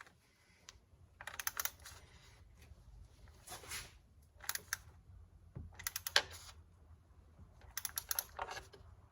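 Hand ratchet clicking in about five short runs of rapid clicks while valve cover bolts are snugged down by feel.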